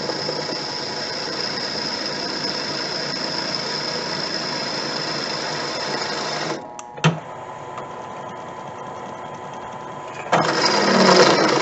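Drill press running with a drill bit cutting into metal, a steady grinding noise with a high whine over it; about six and a half seconds in the cutting stops, leaving the motor running quieter with a single click, and loud cutting starts again near the end.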